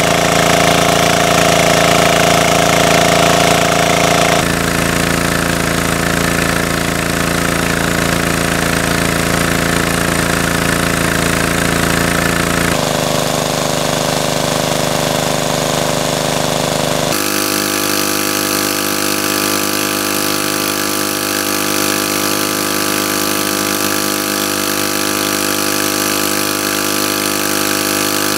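Small petrol engine driving a water pump, running steadily at full throttle, with the hiss and splatter of its water jet spraying out. The engine note shifts abruptly three times.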